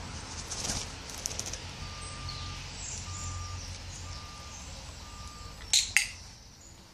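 Handheld training clicker pressed and released: two sharp clicks about a quarter second apart, the signal to the hen that a mealworm treat is coming. Before it come four short, evenly spaced beeps about a second apart.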